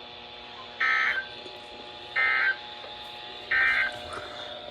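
NOAA Weather Radio SAME/EAS end-of-message data bursts: three short electronic squawks about a second and a half apart, the digital code that signals the end of the severe thunderstorm warning.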